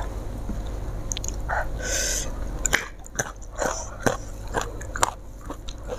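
A person chewing food close to a clip-on microphone. After about three seconds there is a run of short, wet mouth clicks.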